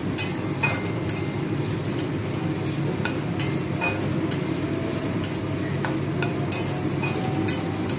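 A metal spatula scraping and clicking against a steel kadai as grated coconut is dry-roasted in it without oil, with irregular scrapes about once or twice a second over a steady low hum.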